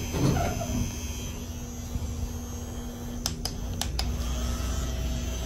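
Steady low hum of a moving elevator, with four sharp clicks about three to four seconds in.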